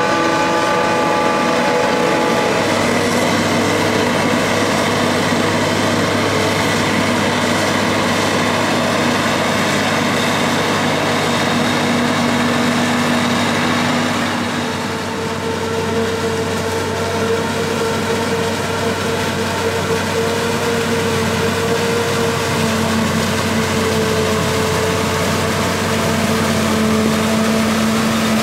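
Claas Jaguar forage harvester and tractors running steadily while chopping corn for silage, a continuous machinery hum made of several engine tones. About halfway the loudness dips briefly and the pitch of the tones shifts.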